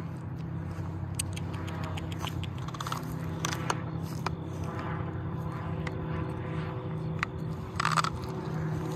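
Scattered scrapes and scuffs of walking on a dry dirt trail, over a steady low hum of distant traffic.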